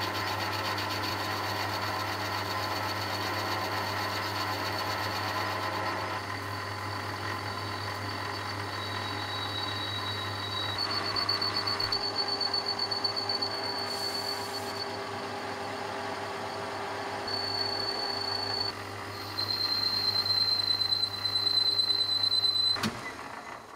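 Metal lathe running with a steady motor hum while the cutting tool turns down a spinning metal workpiece, a high whine from the cut coming and going, loudest near the end before cutting off suddenly.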